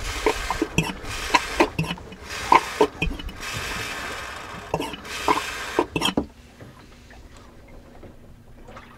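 Hand vacuum pump being worked stroke after stroke, sucking transmission fluid out of the sump to flush metal bits from the gearbox: repeated clicks with a wet sucking sound. The pumping stops about six seconds in.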